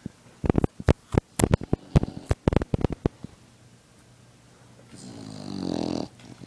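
Sleeping dog snoring: one long, rasping snore, growing louder for just over a second before cutting off sharply. Before it comes a quick, irregular run of sharp clicks and knocks, louder than the snore.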